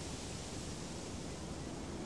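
Steady ambient nature noise: an even hiss that does not change, with no distinct sounds in it.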